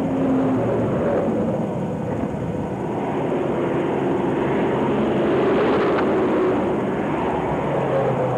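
Steady noise of highway traffic passing at speed, tyres and engines, a little louder about halfway through.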